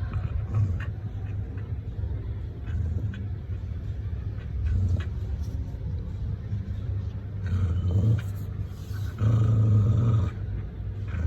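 A dog growling defensively: a low, rumbling growl that goes on and off, with louder growls about two thirds of the way in and again near the end.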